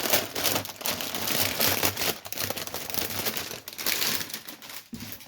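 Plastic packaging on a partwork magazine crinkling and crackling as it is handled and opened, dying away near the end.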